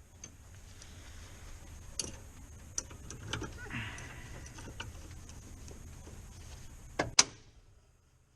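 A low steady hum from the heating unit, with scattered sharp clicks of switches being worked. Two loud clicks come about seven seconds in, and then the hum dies away.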